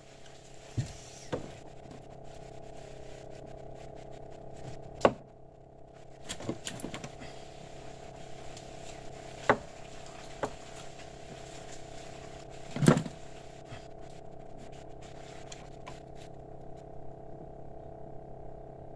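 Scattered knocks and handling noises as an angler unhooks a fish and works his tackle in a small boat, about half a dozen separate knocks with the loudest near the end of the first two-thirds, over a steady low hum.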